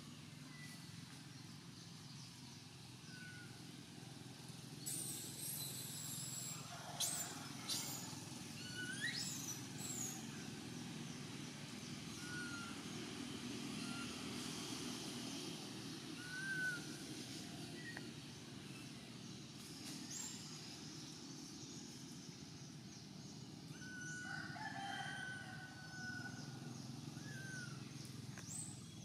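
Faint scattered animal calls, short high chirps and whistles, with a few louder calls about two-thirds of the way through, over a low steady background hum.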